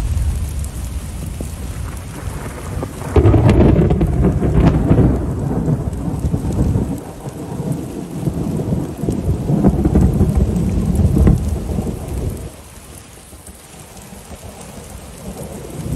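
Heavy rain falling steadily, with a clap of thunder breaking suddenly about three seconds in and rolling on for several seconds, swelling again before it dies away near the end.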